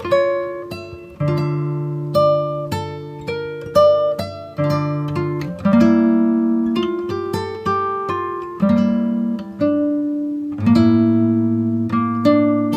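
Background music of acoustic guitar: plucked single notes over strummed chords that ring and fade.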